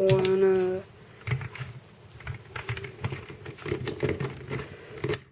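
Plastic helicopter cube pieces clicking and clacking irregularly as a corner piece is pushed and fitted into the partly assembled puzzle.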